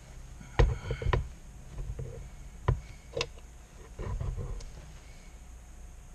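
Handling noises of a small knife blade and handle scale being worked with an epoxy stick and set down on a cutting mat on the bench: a few sharp clicks and taps, two close together about a second in and two more a few seconds in, then a short stretch of softer rustling and scraping.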